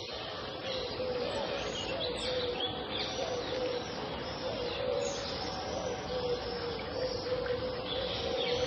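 Pond ambience: several birds chirping and calling at once, with many short chirps throughout, over a steady wash of outdoor background noise.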